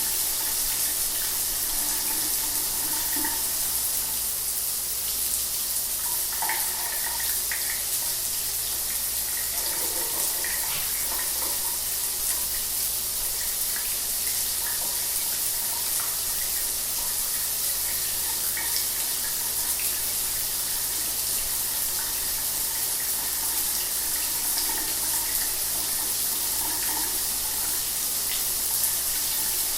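Shower water running steadily, a continuous hiss of spray with small scattered splashes in it.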